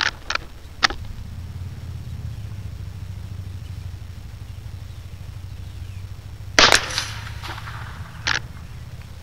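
Gunfire: one loud gunshot about two-thirds of the way through, preceded by three short sharp clicks in the first second and followed by a smaller crack about a second and a half later, over a steady low rumble.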